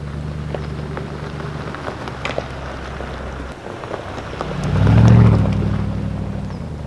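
Lexus GX470's V8 engine running steadily as the SUV drives along a gravel track, tyres crackling over the stones. It grows loudest as it passes close about five seconds in, then fades as it pulls away.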